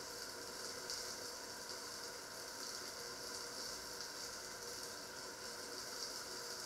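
Covered pot cooking on a ceramic stovetop: a steady hiss with faint crackling, steam escaping from under its lid.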